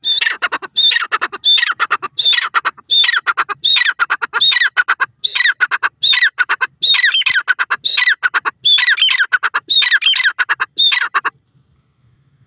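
Grey francolin calling loudly: about fifteen repeated phrases in quick succession, each starting on a high note and sweeping down in pitch, then the calling stops.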